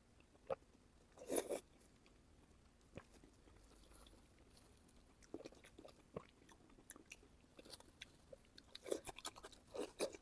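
Close-miked mukbang eating of pork belly: chewing and biting with scattered short, wet clicks. There is a louder burst about a second and a half in and a quick run of clicks near the end.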